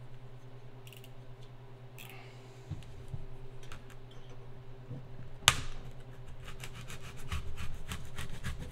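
Utility knife blade drawn along a metal straightedge, scoring a sheet of EPS foam insulation board: one sharp click about halfway through, then a quick run of short scratching strokes.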